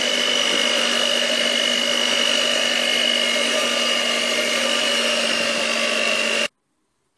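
Electric hand mixer running at steady speed, its beaters whisking flour and water into a thin yeasted batter in a plastic bowl. The whine stops abruptly about six and a half seconds in.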